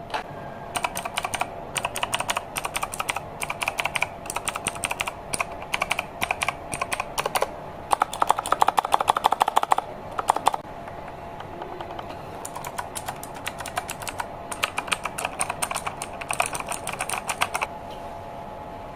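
T-Dagger Capri gaming keyboard with blue switches being typed on: runs of sharp, fast key clicks. The clicking is densest and loudest a little under halfway through, pauses briefly, resumes, and stops shortly before the end, over a faint steady hum.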